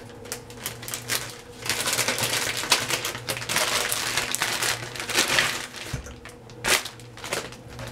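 Packaging crinkling and rustling as bundles of hair extensions are pulled out of it, densest through the middle, with a few sharp snaps near the end.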